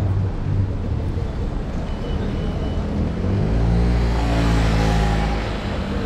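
Street traffic and road rumble heard from an electric scooter's handlebar camera, with a motor vehicle passing close in the middle: its engine hum swells from about three and a half seconds in and fades near the end.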